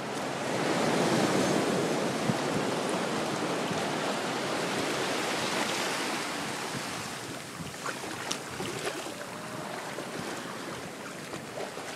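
Ocean surf washing in over the shallows: a wave's rush swells about a second in and then slowly dies away as the foam spreads and drains.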